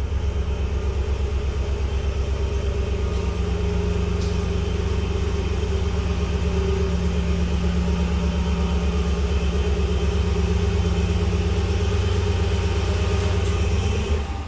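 John Deere E120 lawn tractor's V-twin engine running steadily with a fast even pulse, then shut off near the end.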